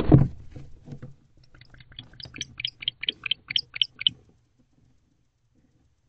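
Male barn owl entering its nest box: a brief loud scuffle of wings and feet at the start, then a quick series of short, high clicks, about five or six a second, that stops about four seconds in.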